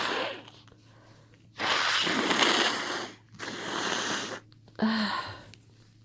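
A woman with a head cold blowing hard through her congested nose in repeated bursts. The longest burst lasts about a second and a half, and the last is short and starts with a brief voiced sound.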